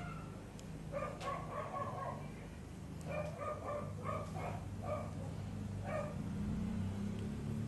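A small dog yapping in short runs of barks: a run about a second in, another from three to four and a half seconds, and a last one near six seconds, over a steady low hum.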